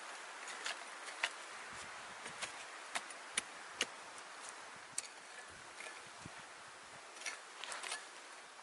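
Hand tool digging and scraping into dry, loose soil, with a scatter of sharp clicks as the blade strikes grit and stones, over a faint steady outdoor hiss.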